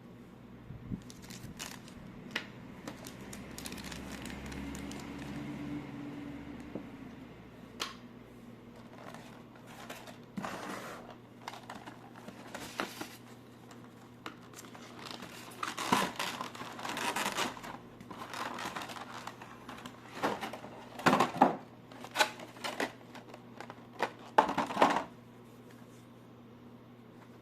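Action-figure packaging being handled and opened: plastic and paper crinkling and tearing, with scattered sharp clicks and taps, the busiest stretch in the second half.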